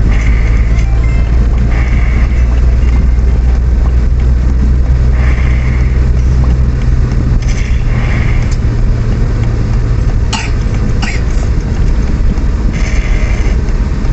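Steady low rumble of a vehicle on the move, easing off about halfway through, with two short sharp sounds a little past the middle.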